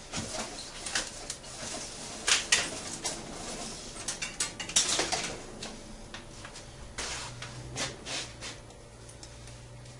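Hands handling electrical wire and small parts at a work surface: scattered clicks, knocks and rustling, busiest in the first half, with a faint low hum coming in after about seven seconds.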